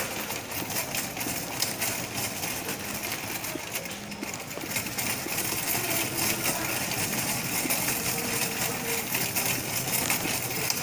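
Shopping cart rattling and clattering steadily as it is pushed along the store floor, with the wheels and wire basket shaking.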